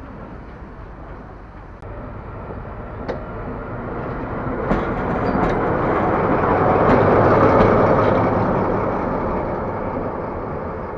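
Diesel engine of a Deutsche Reichsbahn class 112 (V100) diesel-hydraulic locomotive running. It grows louder to a peak about seven seconds in, then eases off. A few sharp clicks come around the middle.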